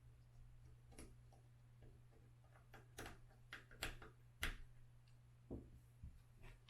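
Faint, scattered clicks and taps of a small Phillips screwdriver and screws being fitted into a Onewheel rail to hold the wiring, loudest in a cluster about three to four and a half seconds in, over a steady low hum.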